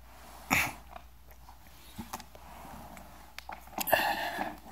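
Hands handling the hard plastic case of a large portable speaker: a knock about half a second in, a few light clicks, then a burst of scraping and clicking near the end.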